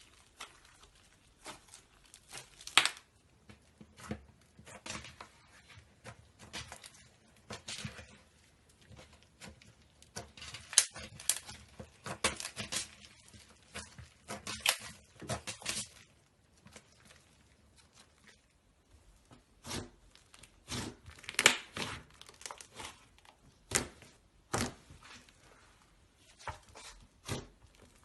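Slime being pressed and stretched by hand, making irregular sharp pops and crackles in clusters with short pauses between them.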